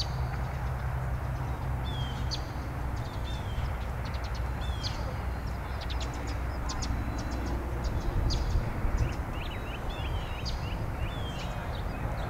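Hiss and static from a Tecsun PL660 shortwave radio's speaker as it is tuned down the 31-metre band between stations, with many short high chirps over it.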